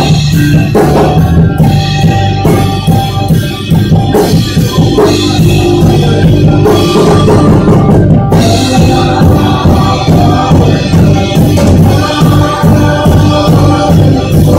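Live worship music from a church band: a steady drum beat with sustained keyboard and guitar chords, and voices singing along.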